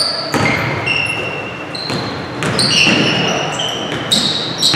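Basketball game play in a gym: sneakers squeak in short, high chirps on the wooden court again and again, while the ball is dribbled and thumps on the floor, everything echoing in the big hall.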